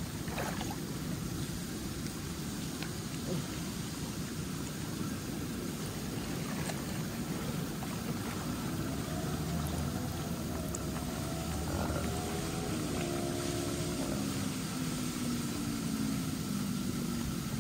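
Steady churning and lapping of pool water at the surface, with a faint constant hum. From about eight seconds in, a propeller aircraft passes overhead, its engine tone sliding slowly lower in pitch as it goes by.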